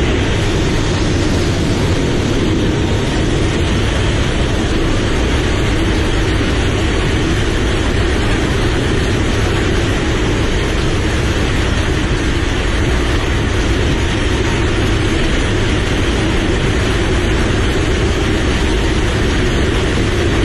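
C-130J Super Hercules heard from inside its cargo hold in flight with the rear ramp open: the four turboprop engines and the air rushing past the ramp blend into one loud, steady roar with no breaks.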